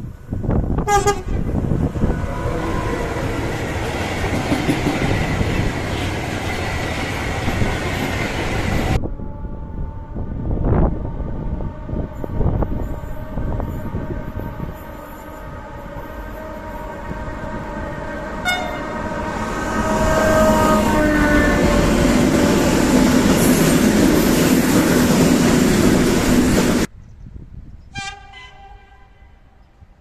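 Passenger and freight trains on an electrified Portuguese line passing, with the drivers sounding the horn in greeting: a horn blast about a second in over the loud rush of a passing train, which cuts off suddenly. Another train approaches with held steady tones and a horn blast, gets loud as it passes and cuts off abruptly, followed by a further short horn blast from a train in the distance near the end.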